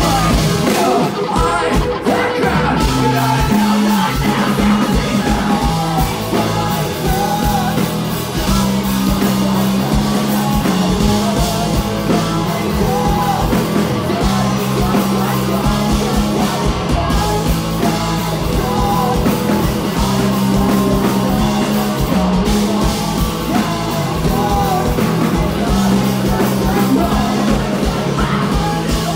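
Live rock band playing loud, with electric guitars, bass guitar and drums, and a singer's voice over the top.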